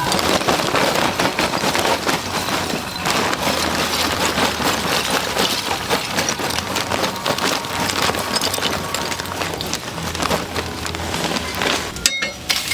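Jerk chicken sizzling and crackling on a charcoal grill, a dense, steady patter of fine pops.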